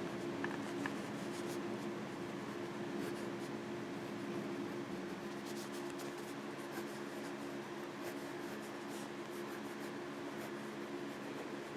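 Bastion Bolt Action ballpoint pen writing on paper: faint, soft scratching of pen strokes over a steady low hum.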